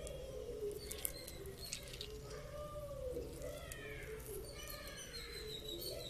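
A dove cooing in low, repeated arched notes, with smaller birds chirping higher up about halfway through.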